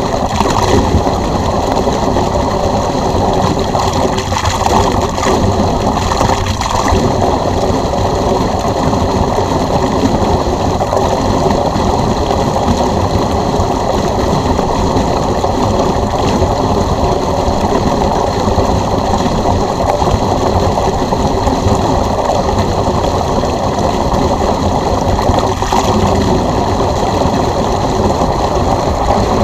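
Water rushing and gurgling steadily out of a pool drain hose driven by an electric pool pump, with the pump running under it.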